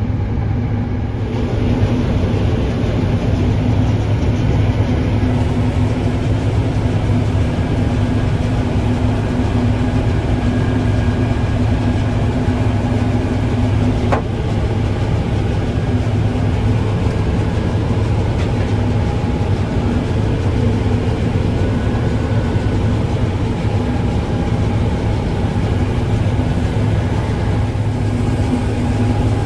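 Combine harvester running steadily while cutting winter barley, an even engine drone with higher whines from the machinery. There is one brief click about halfway through.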